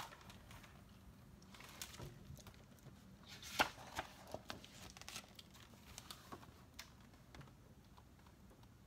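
Pages of a hardcover picture book being turned and handled: faint paper rustling with scattered light clicks, the sharpest about three and a half seconds in.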